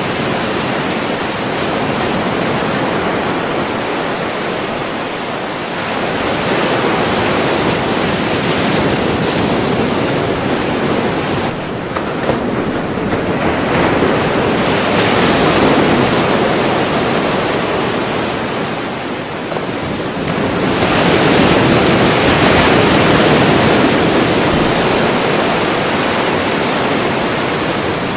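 Ocean surf: waves breaking and washing ashore in a continuous rush. It swells louder with each new breaker, three times, about every seven seconds, and is loudest near the end.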